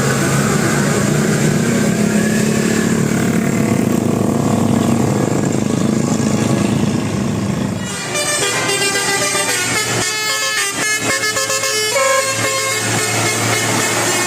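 Bus 'telolet' horns, a set of multi-tone horns that play a short tune. A steady low drone fills the first half, and about eight seconds in a rapid run of short horn notes begins, stopping and starting.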